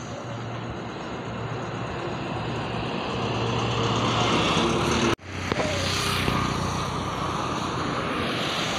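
Steady engine drone that grows gradually louder, broken by a sudden brief dropout about five seconds in.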